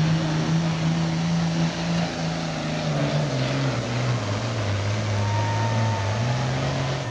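Heavy diesel super stock pulling tractor's engine running hard and loud, its pitch stepping down noticeably about four seconds in and then holding steady at the lower pitch.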